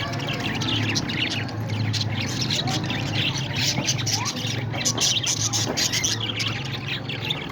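Parrots chattering and squawking together, a dense unbroken run of short, overlapping high calls, over a steady low hum.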